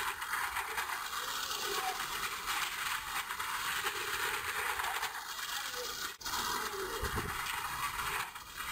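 Steady noisy din of a small car circling the wooden wall of a wall-of-death pit, with faint voices under it and a brief dropout about six seconds in.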